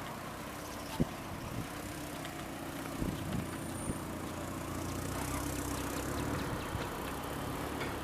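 An engine idling steadily, with a few sharp knocks about one, three and four seconds in.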